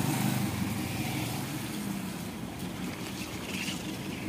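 A motorcycle engine running as it passes close by, fading after about a second and a half and leaving a steady hiss of traffic on a wet road.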